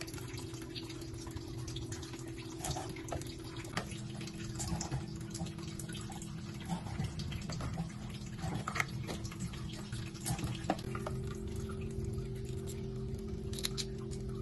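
Kitchen prep sounds: scattered light clicks and small wet taps as prawns are trimmed with a cleaver on a wooden chopping board and handled in plastic baskets, over a steady low hum.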